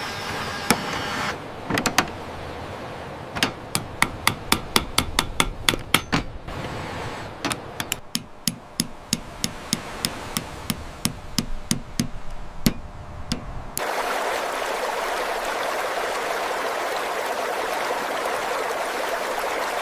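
Small hammer tapping on wooden beams in sharp knocks, about three a second at first, then slower and more spaced. About fourteen seconds in, it cuts abruptly to steady running water.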